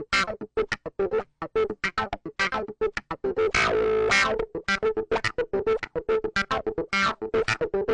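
Clavinet tone playing a choppy riff of short, staccato plucked-string notes, with one longer chord held about halfway through.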